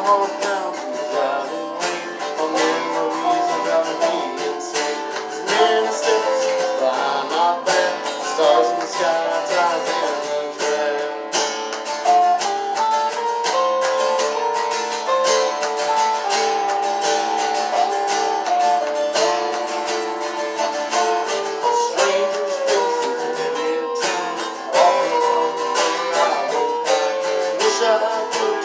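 Acoustic guitars playing a folk tune, chords strummed under a moving melody line, with no words sung.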